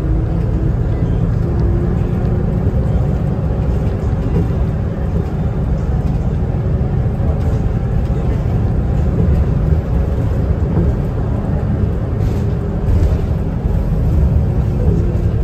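City bus heard from inside the passenger cabin while under way: a steady low rumble of engine and road noise, with a faint hum or whine above it that comes and goes.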